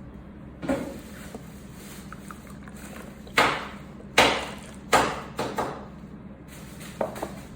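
A handful of irregular knocks and thumps, about seven, spread unevenly over several seconds, over a steady low hum.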